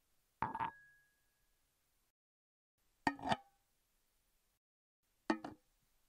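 Three separate foley hits of an object set down or dropped onto a stone surface, about two seconds apart, each a quick double knock; the first leaves a short high ring.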